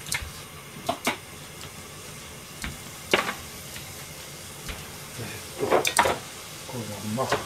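Liquid simmering and sizzling in an aluminium pan under a perforated metal drop lid as its water cooks off, with a few sharp clicks and pops: about a second in, around three seconds, and near six seconds.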